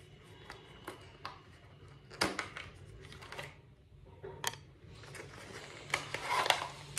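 Handling of a cardboard power bank box as it is opened: scattered light clicks and taps from the packaging, a louder scrape about two seconds in, a sharp click after four seconds and a denser rustle near the end.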